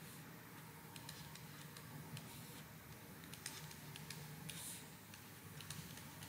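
Faint scattered clicks and taps of a stylus writing on a tablet, over a low steady hum.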